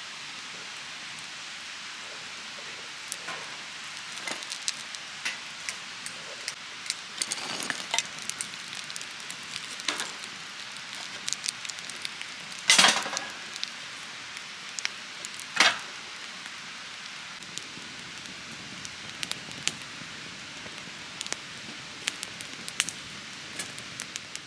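Scattered crackles and pops of a wood cooking fire over the steady rush of a river, with two louder knocks about halfway through.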